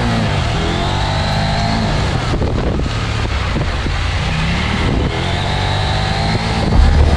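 Adventure motorcycle engine revving up and dropping back while riding off-road, its pitch rising and falling twice. A deep low boom comes in near the end.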